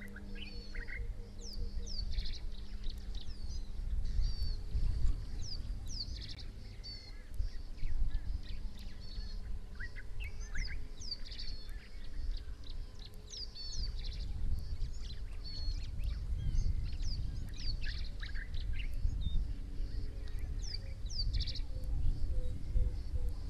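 Small birds chirping: many short, high, downward-sweeping notes repeated again and again, over a steady low rumble.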